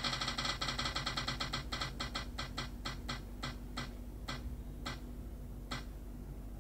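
Spin-the-wheel app on an iPad ticking as its wheel spins down: rapid clicks that grow steadily farther apart, slowing to about two a second as the wheel nears a stop.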